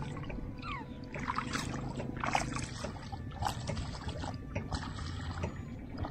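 Shallow rice-paddy water splashing and trickling in short, irregular bursts around a small glass fish tank, over a low steady rumble.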